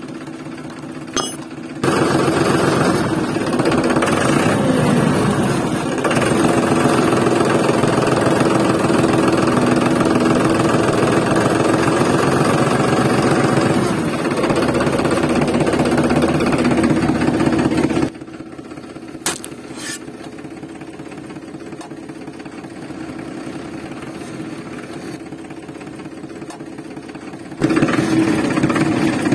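A motor running steadily with a fast, even pulse. It starts quieter, turns loud after about two seconds, drops suddenly to a lower level a little past the middle, and comes back loud near the end.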